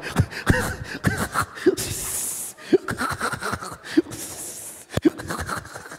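Scattered laughter and chuckling from a congregation, in short separate bursts over a low murmur of voices.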